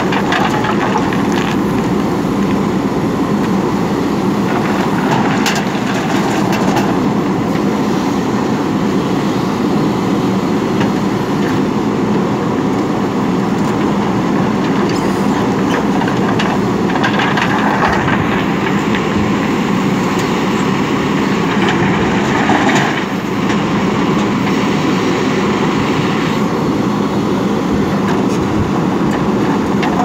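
JCB 3DX Super backhoe loader's diesel engine running steadily under load while the backhoe bucket digs into a pile of crushed stone, with the stones scraping and clattering at times.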